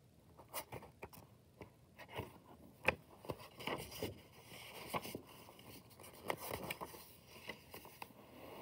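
Pages of a paperback picture book being opened and turned by hand: paper sliding and rustling with a string of soft clicks and taps, the sharpest about three seconds in.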